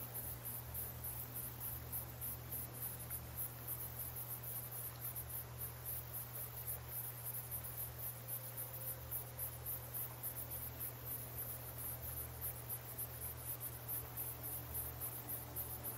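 Faint crickets chirping in an even, rapid pulse over a steady low hum.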